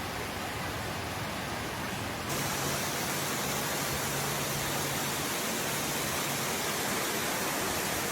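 Waterfall: a steady rush of falling water, growing a little louder about two seconds in.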